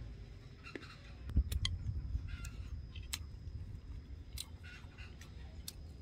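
A man chewing a mouthful of food with wet smacking and scattered sharp mouth clicks; the loudest is a thump with a click about a second and a half in.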